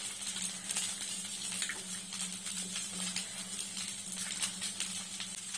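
Fried peanuts being tipped onto poha in a steel pan: faint, scattered soft ticks over a steady low hum and light hiss.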